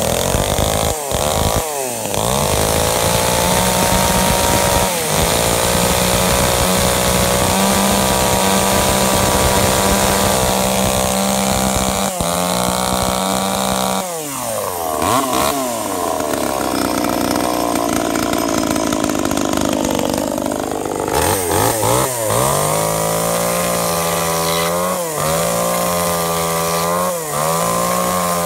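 Tanaka ECS-3309 two-stroke chainsaw engine, just started, running steadily at high speed. From about halfway it changes pitch as it saws through a wooden plank, and near the end it revs up and drops back several times.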